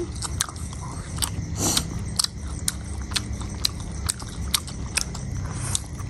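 Close-up eating of Indomie stir-fried noodles: wet chewing and slurping, with sharp mouth clicks about twice a second over a low steady hum.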